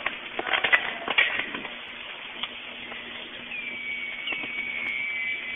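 Tree burning where it touches high-voltage power lines, crackling and popping for the first two seconds or so. Then a steady low hum sets in, and a thin high whistle joins it about halfway through.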